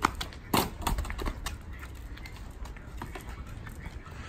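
Footsteps on interlocking paving stones: a few sharp clicks in the first second and a half, fainter steps after.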